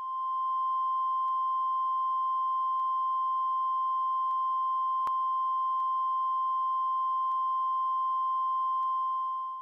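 Steady high-pitched electronic test tone, the reference tone that goes with colour bars. It fades in at the start and out near the end, with faint ticks about every second and a half.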